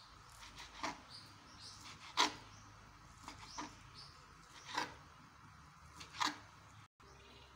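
Kitchen knife chopping through minced meat onto a plastic cutting board: five sharp knocks, about one every second and a half, the second the loudest.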